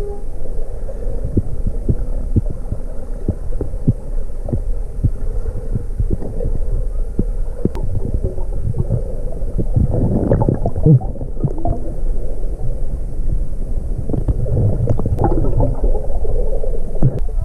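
Underwater sound picked up by a diver's camera: a low steady rumble with scattered clicks and knocks, and louder rushing stretches about ten seconds in and again around fifteen seconds.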